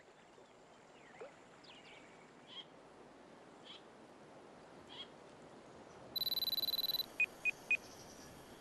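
Quiet natural ambience with a few faint bird chirps, then a digital clock beep: one long, steady, high electronic beep about six seconds in, followed quickly by three short beeps.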